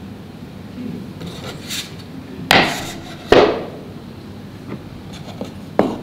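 Wooden knocks from a bentwood wooden rice tub being opened: two sharp clunks with a short ring, under a second apart, about two and a half seconds in, then lighter wooden taps near the end as the wooden paddle works in the tub.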